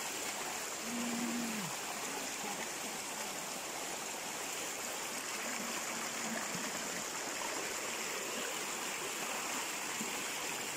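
Steady rush of running water, as from a mountain stream or waterfall, with brief faint voices about a second in and again around six seconds in.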